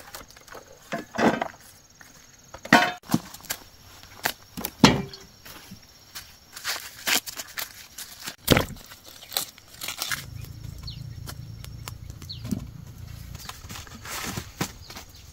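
Husks being peeled off boiled corn cobs by hand, crackling and tearing in irregular bursts, with a few knocks. A low steady hum joins about ten seconds in.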